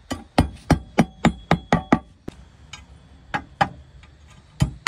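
Hammer tapping at clay roof tiles: a quick run of about eight sharp strikes with a light metallic ring, a pause, then a few more strikes near the end.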